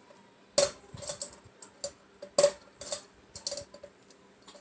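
Hunter Discovery ceiling fan running on high speed, with a faint steady hum and about ten sharp, irregular metallic clicks with a short ring.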